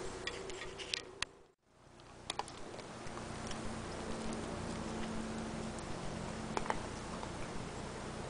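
Scattered sharp clicks and ticks as a dog noses through a plastic tray and crunches dry kibble nuggets, over a steady low hum. The sound cuts out briefly about a second and a half in.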